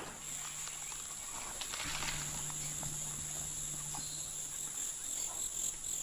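Forest ambience with a steady, high-pitched insect drone.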